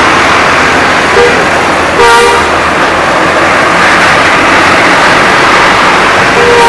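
Bus horns giving short toots over a loud, steady rushing noise, the strongest blast about two seconds in.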